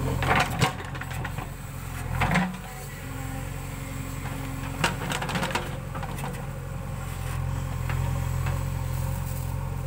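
Backhoe loader's diesel engine running, dropping off about two seconds in and building back up over the last few seconds, with a few short metal knocks near the start and around the middle.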